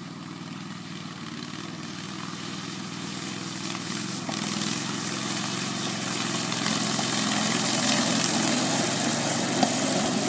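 Engine of a twin-tracked ATV running steadily and growing louder, with more rattle and hiss joining in from about three seconds in.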